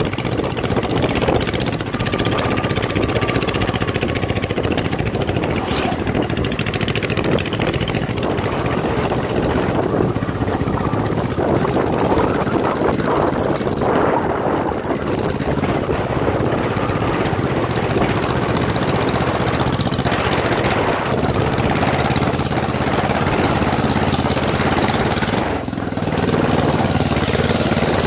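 Motorcycle engine running steadily under way on a dirt trail, mixed with wind rush and tyre noise; the sound eases briefly near the end.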